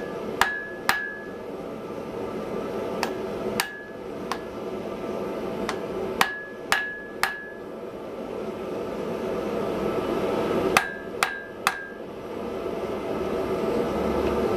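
Hand hammer striking red-hot wrought iron on an anvil, eleven blows in short groups of two or three with pauses between, the anvil ringing briefly after each blow. A steady rushing noise runs underneath.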